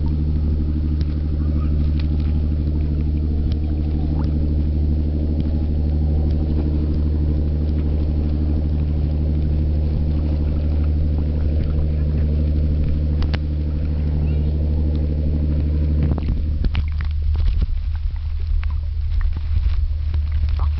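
A boat engine runs with a steady low hum. About 16 seconds in, the hum drops back and gives way to muffled splashing and clicks as the microphone goes underwater.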